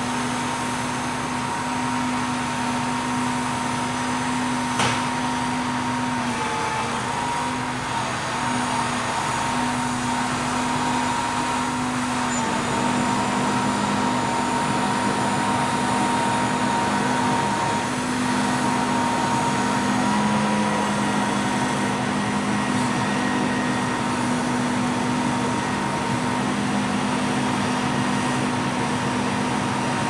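Grapple truck's engine running steadily to power its hydraulic knuckle-boom crane, a steady hum with a high tone over it that shifts slightly in pitch as the grapple lifts and places a big log section. A single sharp knock comes about five seconds in.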